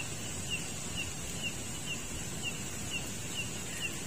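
Short high chirps from a small animal, repeating evenly about twice a second over a steady high hiss in the night-time outdoor background.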